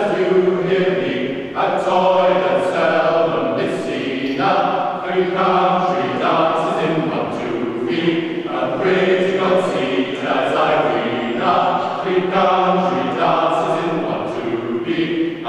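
Large mixed choir of men and women singing unaccompanied, in phrases broken by brief pauses every couple of seconds.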